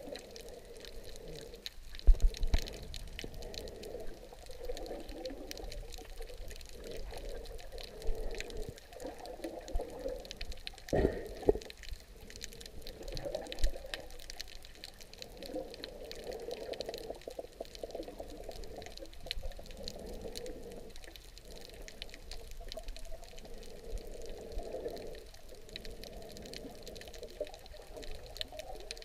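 Muffled underwater water noise heard through an action camera's waterproof housing: swishing and bubbling that swells and fades every few seconds, with a few dull knocks, the loudest about two seconds in and another about eleven seconds in.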